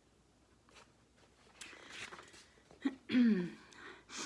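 A pause with a soft paper rustle as a page of a picture book is turned, then a short wordless vocal sound from the reader's voice a little after the middle.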